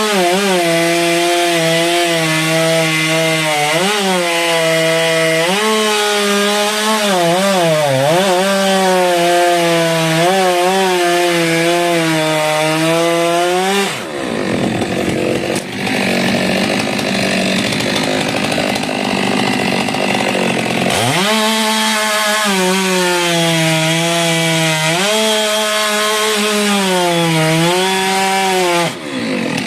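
Stihl two-stroke chainsaw cutting through a frangipani trunk, the engine pitch sagging and wavering as the chain bites into the wood. About halfway through the engine's pitch line fades into a rougher, noisier sound for several seconds before the saw goes back under load, easing off briefly near the end.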